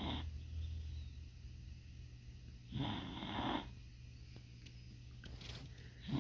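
A sleeping dog snoring: one snore lasting under a second about three seconds in, and the next one beginning just at the end.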